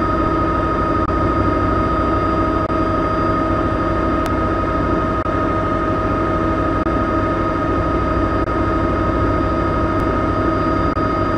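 Helicopter running steadily: a low rumble with a steady whine on top.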